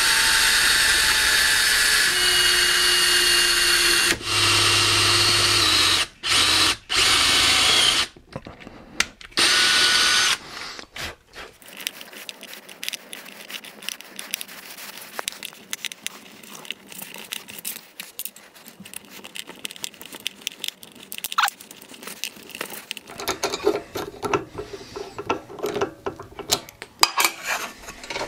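Electric drill with a 1/16-inch bit drilling a pilot hole into wood, its motor running in several bursts with short stops and some shifts in pitch for about the first ten seconds. After that come only quieter clicks and rubbing.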